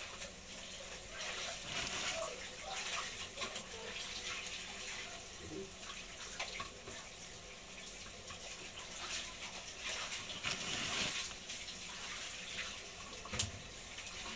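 Pieces of marlin scrap frying in hot oil in a pan: a steady sizzle with scattered crackles and pops.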